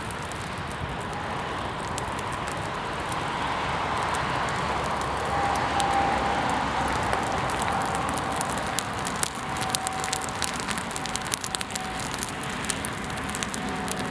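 A paint-splattered canvas burning: the flames crackle, with sharp pops coming thicker in the second half. A faint steady whistling tone runs through it from about five seconds in.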